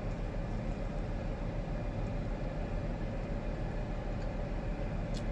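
Steady low hum of an idling vehicle, with a faint tick near the end.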